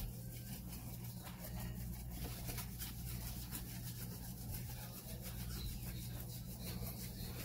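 Soft, rapid rubbing of hands scrubbing a small dog's wet, shampoo-lathered fur and legs, over a steady low hum.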